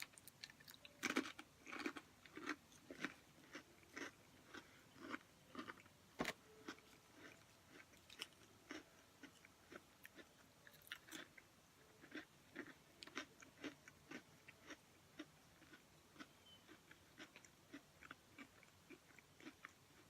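Close-miked biting and crunching of thin, crisp pretzel crackers, with sharp loud bites about a second in and again about six seconds in. Steady crunchy chewing follows, roughly two chews a second, growing softer toward the end.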